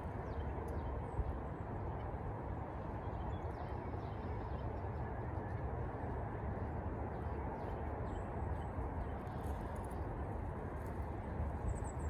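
Steady low rumble of wind on the microphone, with a few faint short high-pitched sounds near the end.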